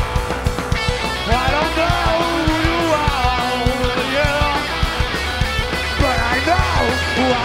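Heavy rock band playing live: a lead electric guitar plays bending, wavering notes over steady drums and bass, with no vocals.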